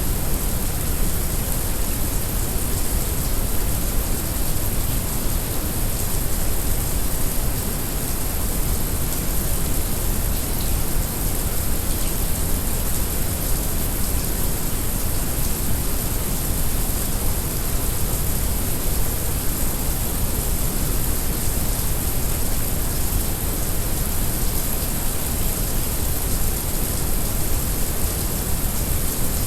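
Heavy rain mixed with brown noise: a steady, even hiss with a deep rumble underneath.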